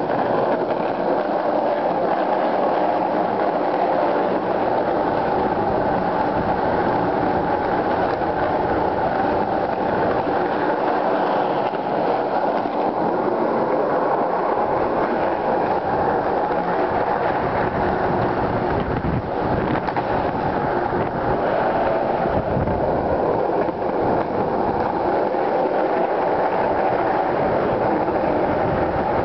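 Skateboard wheels rolling fast over concrete, a steady rolling noise with a few brief knocks.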